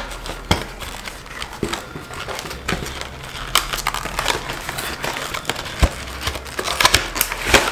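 Cardboard and plastic retail packaging handled by hand as the box is opened and its inner tray slid out: rustling and crinkling with scattered sharp clicks and taps.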